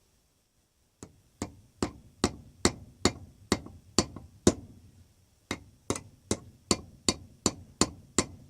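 Hammer tapping a steel spring pin into a hole drilled through a bench vise's lead screw: a steady run of light, sharp taps, about two to three a second, with a short pause about halfway through before the tapping resumes.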